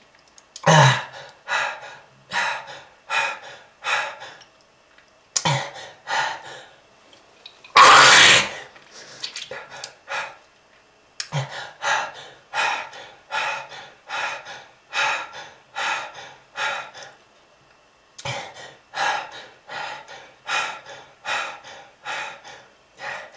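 A person coughing in four fits, each a run of short coughs about every half second that starts with a sharp, deep cough and then tails off. About eight seconds in comes one loud, harsh hacking cough. The coughs are presented as a smoker's cough.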